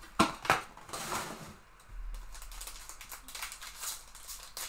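Hands handling a stack of Topps Chrome trading cards: two sharp clicks about a third of a second apart near the start, then softer rustling and shuffling of the cards.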